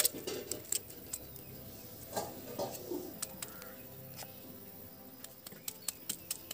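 Knife chopping a banana flower held in the hand, the blade cutting through the florets in quick, irregular sharp chops. A brief low bird-like call sounds about two seconds in.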